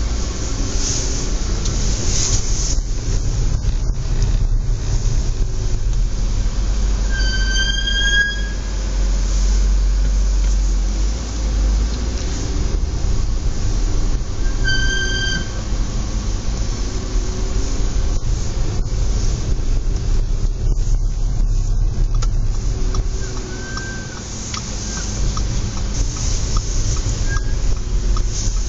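Audi S4 B8 brakes squealing in short high-pitched bursts over a steady rumble of car and road, two clear squeals of about a second each, about 7 and 15 seconds in, then fainter short squeaks near the end. The squeal comes in low outside temperature.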